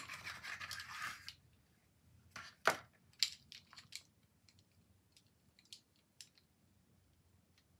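Paintbrushes sliding out of a narrow cardboard box with a scraping rustle, then a string of light clicks and knocks as the brushes are handled and tap against each other, the loudest a sharp knock just under three seconds in, with fainter ticks trailing off.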